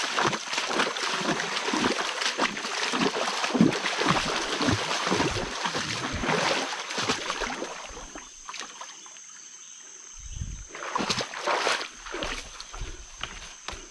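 Footsteps splashing and wading through a shallow stream, dense and irregular for the first seven seconds or so. Then the water sound drops away, leaving quieter scattered steps and rustles on leaf-littered ground.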